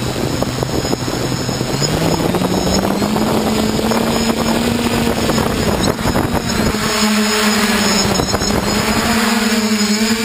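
TBS Discovery quadcopter's brushless motors and propellers spinning up from the ground, heard up close on its frame. The motor whine rises in pitch over the first few seconds, then holds with small wavers over a loud rushing of air as the craft begins to lift near the end.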